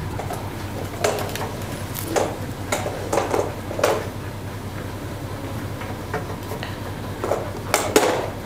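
Irregular sharp clicks and taps from a dog-training clicker marking a dog's behaviour as it learns to push a light, with a lull midway.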